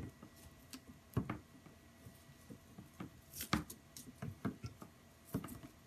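Scattered light clicks and taps of small handling, the loudest about a second in and about three and a half seconds in, over a faint steady high whine.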